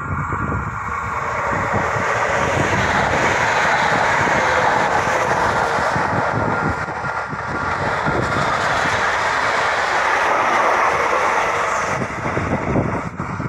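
RENFE series 470 electric multiple unit passing close by: a rush of wheel and rail noise that builds over the first couple of seconds, stays loud as the train goes by, and fades near the end.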